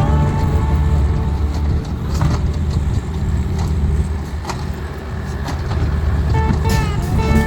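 Engine of a compact earthmoving machine running steadily under way, with a few sharp clanks.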